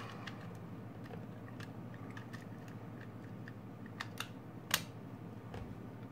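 Small plastic clicks and taps from the housing of a Silvercrest electric salt and pepper mill being turned and fitted together by hand, with a few louder clicks about four seconds in and the sharpest just after.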